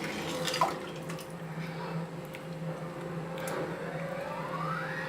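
Water being poured into a cup, with a pitch that rises as the cup fills in the last second and a half, over a steady low hum and a few light clicks.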